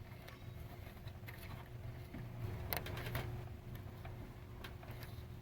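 Faint clicks and handling of the hole punch unit's wiring connectors being plugged into the inner finisher, with a short cluster of clicks about three seconds in, over a low steady hum.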